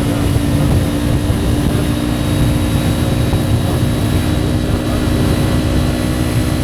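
Kawasaki Ninja 400's parallel-twin engine running loud and steady, holding one engine speed with an even, unchanging note over a low rumble.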